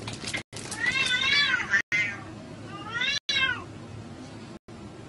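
Two cats fighting, one yowling. A long call about a second in rises and then falls away, and a second, shorter call comes about three seconds in.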